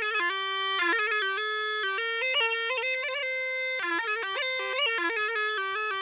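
Background music: a bagpipe-like reed melody played in quick stepping notes, starting abruptly.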